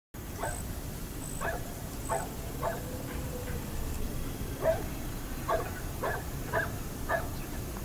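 Dogs barking and yipping in short, separate barks, about nine in all, with a pause about halfway through.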